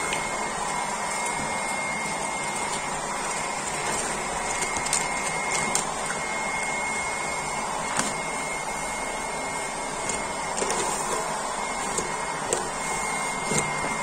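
Hair dryer running steadily, a blowing hiss with a thin high whine, heating vinyl interior film so that it softens and peels off. A few faint light clicks sound over it.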